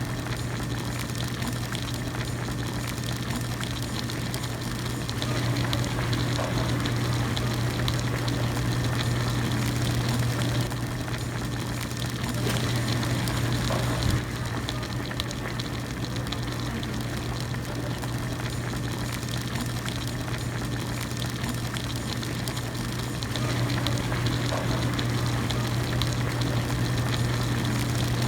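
Broth in a hot pot at a rolling boil, bubbling steadily over a steady low hum. The boil grows louder for a few seconds at a time, three times.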